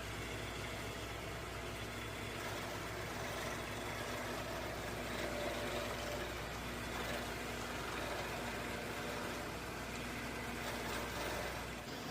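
Shopsmith multipurpose machine's motor running steadily with a low hum.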